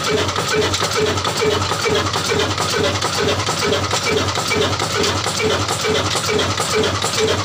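Old Ruston-type stationary diesel engine, cast 'Shareef Pakistan', running steadily at low speed with a low drone and an even beat of about three pulses a second.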